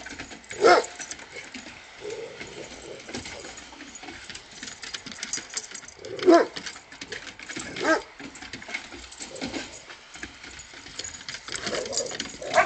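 A dog barking a few short, spaced-out barks, with a steady patter of small clicks and scratching noises between them.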